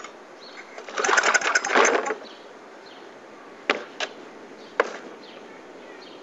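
Murray lawn mower's small engine pulled over once on its recoil starter, cranking with a quick rattle for about a second without catching, then three sharp clicks. The cold engine is refusing to start.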